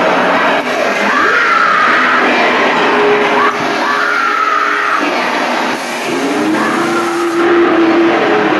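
Haunted-house horror soundtrack: loud, eerie droning music with three long wailing voices that rise and fall.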